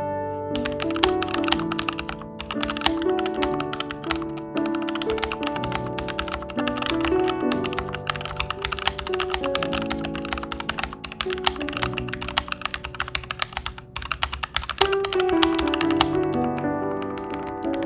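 Rapid typing on a mechanical keyboard: a dense, continuous stream of keystroke clacks, briefly pausing near the end, over background piano music.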